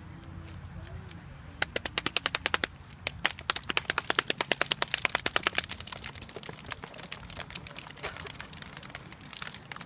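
A rapid train of sharp clicks, about ten a second, in two runs: a short one about a second and a half in, then a longer one starting about three seconds in.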